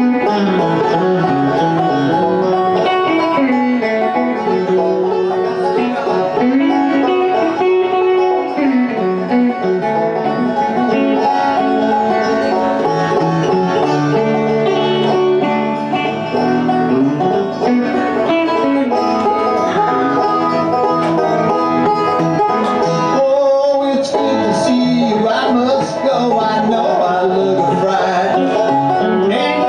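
Live bluegrass instrumental: a five-string banjo picking rolls alongside an electric guitar, with no singing.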